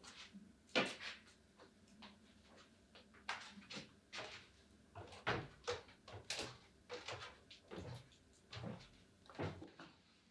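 Slow, irregular footsteps and wooden knocks on a wooden staircase and floorboards, the loudest about a second in.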